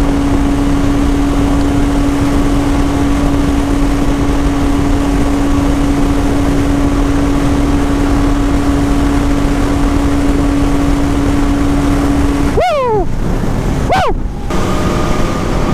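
Benelli 502C's 500 cc parallel-twin engine held at a steady high-rpm note near its top speed of about 170 km/h, under heavy wind rush. About twelve and a half seconds in, the engine note drops sharply, then falls again a second later as the throttle is rolled off, and settles at a lower, steadier note.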